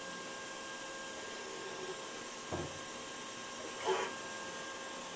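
Milltronics TRM 3016 CNC mill running an automatic touch-probe cycle: a steady machine hum with a few faint steady tones. There is a soft knock about two and a half seconds in and a short whirr at about four seconds.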